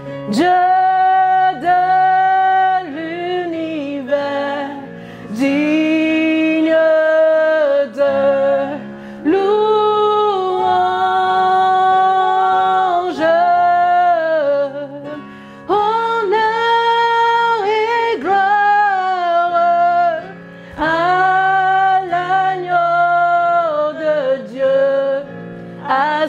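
Women singing a slow worship song in French, long held notes in phrases a second or two long, over a steady sustained instrumental accompaniment.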